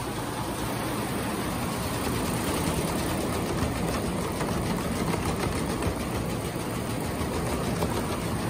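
Multi-head computerised embroidery machine running, its needle heads stitching with a fast, even mechanical rattle at a steady level.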